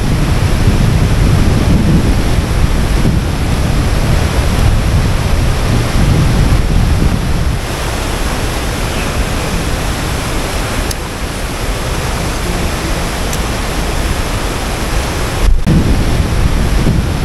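Water rushing and churning out of a dam spillway gate, a loud steady rush, with wind rumbling on the microphone. It breaks off briefly near the end.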